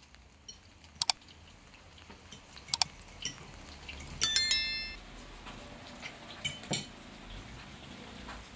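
Forks clinking against plates as people eat: a few separate sharp clinks, the loudest about four seconds in with a short bright ring.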